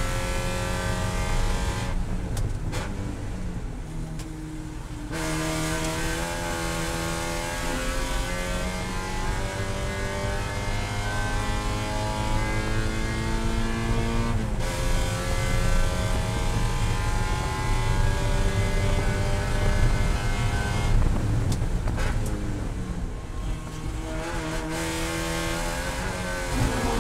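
Spec Miata's four-cylinder engine heard from inside the cabin at high revs. The pitch climbs steadily under full throttle and drops suddenly at an upshift about halfway through. The sound dulls briefly early on and again near the end as the driver lifts off, with the pitch wavering at the close.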